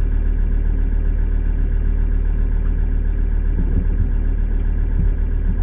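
Ford Ranger engine idling steadily, heard from inside the cab, with the alternator charging the power station.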